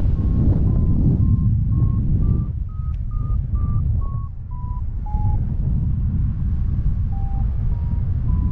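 Paragliding variometer beeping about twice a second, the pitch stepping up and then back down, the sign of the climb in rising air strengthening and then easing. The beeps stop for a couple of seconds about five seconds in and return lower. Wind rushes over the microphone throughout and is the loudest sound.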